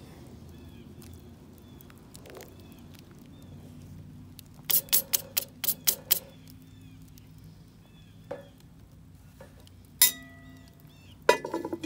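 Wooden spoon knocking about seven times in quick succession against a cast-iron Dutch oven, then near the end metallic clanks with a brief ring as the heavy cast-iron lid is handled and set back on the pot.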